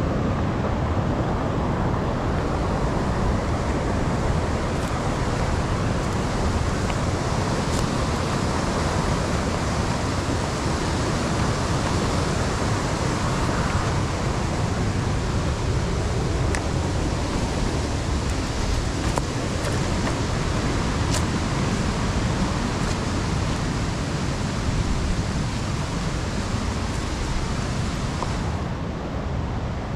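A mountain stream rushing steadily.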